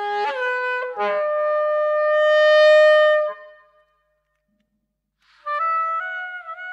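Solo soprano saxophone in free improvisation: a short low note slides up into a long held note that swells louder, then stops. After a rest of about a second and a half, a new note begins and steps up in pitch with a slight bend.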